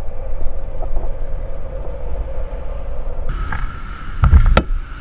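Bajaj Boxer CT 100's small single-cylinder engine running under way, with a steady low rumble of wind on the camera. The sound changes abruptly about two-thirds of the way in, and near the end a brief heavy thump with a couple of sharp clicks stands out as the loudest moment.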